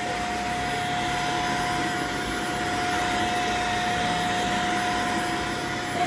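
Xiaomi Mijia dust mite vacuum cleaner running steadily at its only speed as it is drawn over a fabric cushion: a steady rush of air with a constant whine.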